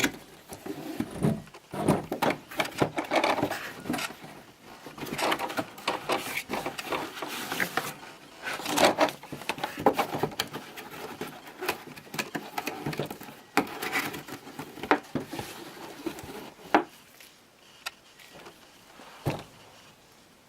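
Cardboard toy boxes and their packaging being handled and opened: irregular rustling, scraping and knocks, thinning out to a single knock in the last few seconds.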